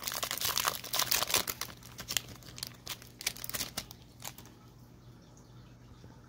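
Foil trading-card pack being torn open and crinkled, rustling loudly for about two seconds, then lighter, sparser crinkles as the cards come out, dying away about four seconds in.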